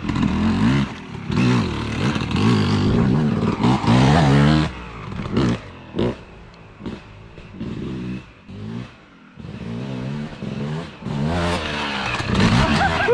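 Yamaha YZ250 two-stroke dirt bike engine revving hard, its pitch climbing and dropping again and again as the throttle is worked through the gears. It is loud for the first few seconds, dies down in the middle, and swells again near the end.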